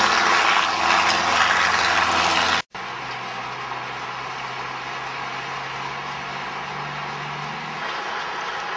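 A light helicopter crashing and tumbling in dust: loud rotor chopping and rushing noise that cuts off abruptly about two and a half seconds in. Then a truck engine running steadily, a quieter low hum.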